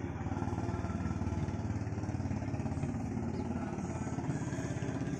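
An engine running steadily with a fast, even pulse, like a motorcycle engine.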